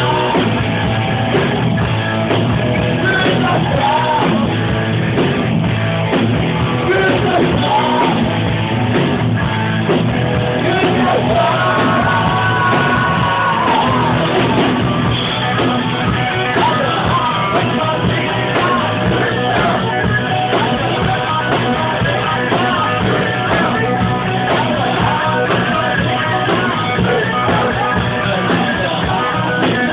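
Rock music with a singer and guitars, steady and loud throughout.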